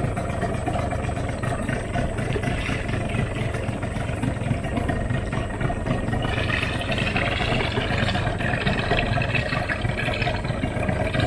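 A small boat's motor running steadily as the boat moves along the river, with a higher hiss joining about halfway through.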